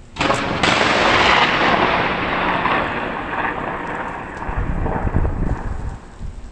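A close thunderclap: a sudden sharp crack just after the start, then loud rolling thunder that slowly fades over several seconds.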